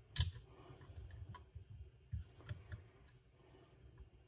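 Small metal and plastic parts of a Hi-Capa airsoft pistol's lower frame clicking and tapping as they are pressed and seated by hand: one sharper click about a quarter second in, then a few faint taps.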